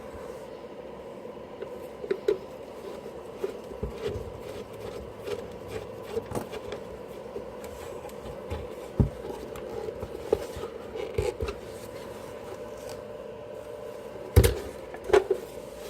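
Small clicks, knocks and rubbing from the plastic housing and screws of an electric leaf blower being handled and fitted back together, with a louder knock about fourteen seconds in.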